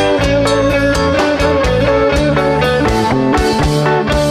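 A live band playing a song on electric guitars, electric bass and drum kit, with sustained guitar notes over a steady drum beat.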